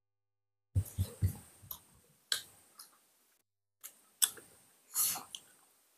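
Close-up eating sounds: sharp clicks and smacks of chewing and mouth noises, in two bursts with a short pause between them.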